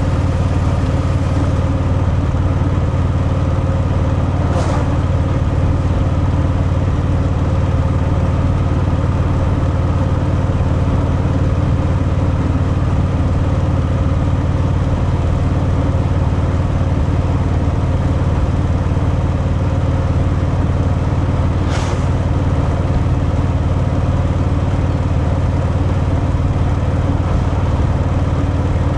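Harley-Davidson Fat Boy's air-cooled V-twin through its stock exhaust, running at a steady cruising speed with a deep, even note. Two brief sharp sounds cut across it, about five seconds in and again near twenty-two seconds.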